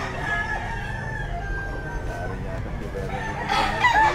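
Roosters crowing: one long crow slowly falling in pitch and trailing off over the first two seconds, then another rooster starting a loud crow near the end, over a steady background din.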